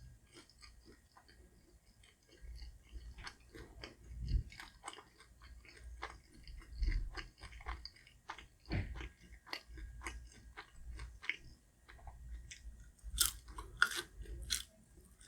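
Close-up chewing of a crispy pan-fried scallion pancake: a run of wet crunches and clicks, louder and crisper near the end.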